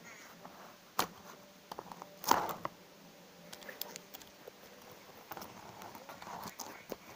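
Handling noise as a die-cast toy car and small craft pieces are moved about on a cardboard base: scattered light clicks and taps, a sharp knock about a second in, and a louder clatter just after two seconds.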